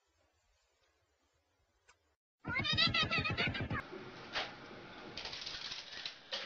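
Near silence, then, about two and a half seconds in, a house cat gives a loud, wavering meow lasting about a second. Noisy rustling with a couple of sharp knocks follows.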